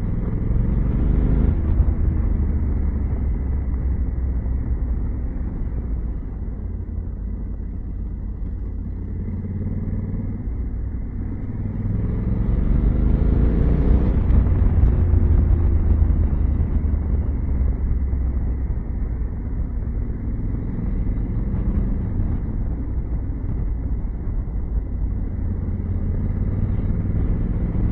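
2021 Honda Africa Twin's parallel-twin engine running under way, with wind and road noise, heard as a low, dull rumble. It swells louder for a few seconds around the middle, with the engine pitch rising and falling.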